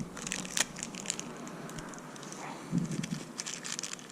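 Plastic packaging bag of a replacement fuse crinkling and crackling in the hands as it is handled and opened, with a short low sound about three seconds in.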